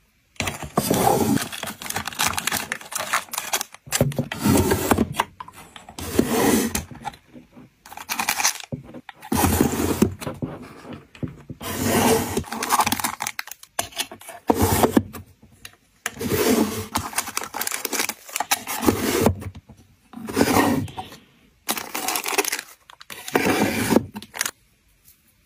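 Small wooden drawers of a tabletop chest slid open and shut over and over, wood scraping on wood, with plastic-packed items rustling as they are handled. About a dozen scraping strokes, each around a second long.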